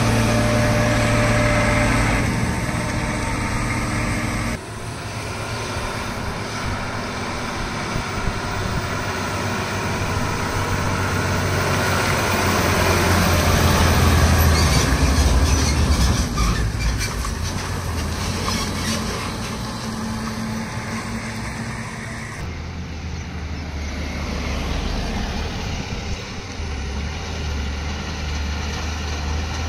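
Heavy diesel goods trucks passing close by on a highway: engine drone and tyre noise, swelling to its loudest about halfway through as one goes past. The sound changes abruptly twice, about four seconds in and again near the end.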